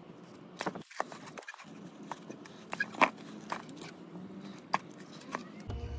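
Scattered light clicks, scrapes and knocks of metal parts being handled: slide pins pulled out of a rusty Chevy Equinox front brake caliper mounting bracket and set down in a cardboard box.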